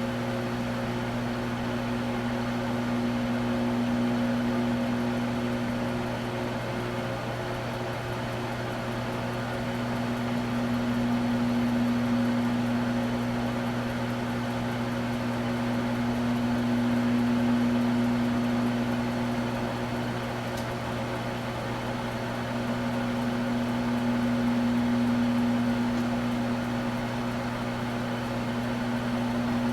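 Microwave oven running: a steady electrical hum with a low drone, swelling and easing slowly in loudness.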